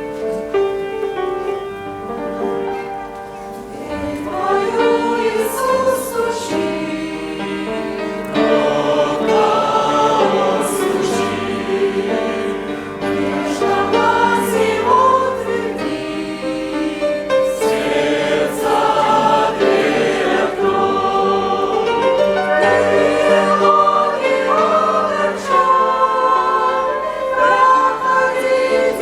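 Church congregation singing a hymn together, many voices in sustained, flowing phrases.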